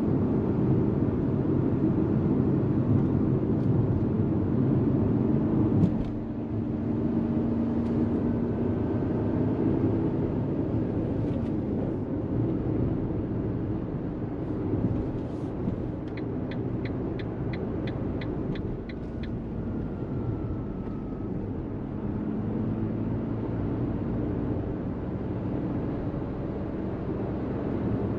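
Fiat Panda 1.0 BSG mild hybrid's three-cylinder petrol engine running with tyre and road noise while driving in town; the engine note drops about six seconds in. Around halfway, a run of about ten quick ticks over some three seconds.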